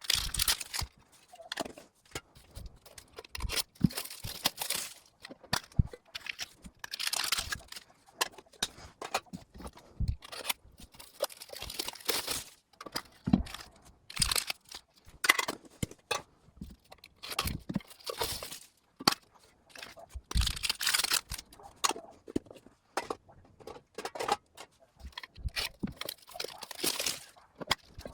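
Plastic wrapping and foil booster packs crinkling and rustling in irregular bursts, with sharp clicks and knocks from small metal tins being opened and their packs taken out.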